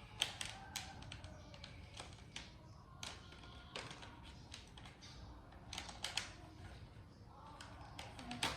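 Irregular light taps and clicks, a dozen or so scattered unevenly, with a sharper knock just before the end.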